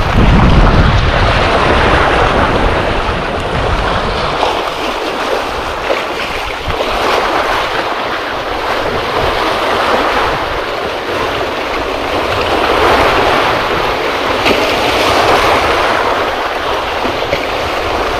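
Sea waves breaking and washing over shoreline rocks, the surf rushing louder and softer in swells every few seconds. A low rumble of wind on the microphone sits under it in the first few seconds.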